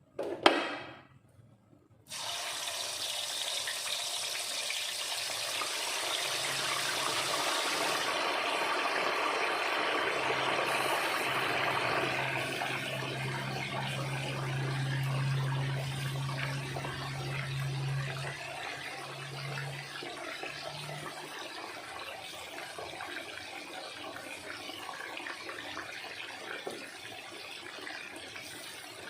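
Chicken pieces frying in hot oil: a sizzle starts suddenly about two seconds in, loudest at first, then settles into a steadier, quieter frying sizzle. A single knock comes just before, and a low hum comes and goes in the middle.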